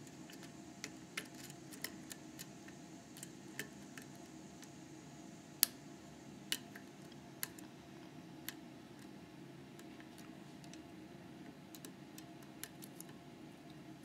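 Small, irregular metallic clicks of a hook pick working the pin stacks of a 6-pin Metal X6V lock cylinder held under tension, about a dozen scattered ticks, the sharpest a little over halfway through.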